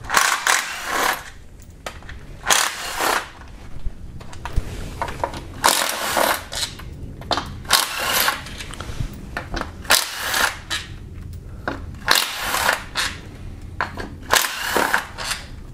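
Cordless power tool spinning out the transmission oil pan bolts one at a time, in short runs of half a second to a second, about nine or ten times with pauses between.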